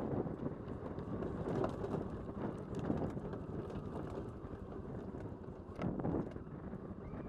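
ATV riding down a rough dirt track, its chassis rattling and knocking over stones and bumps amid a steady rumble of tyres on gravel, with wind buffeting the action-camera microphone.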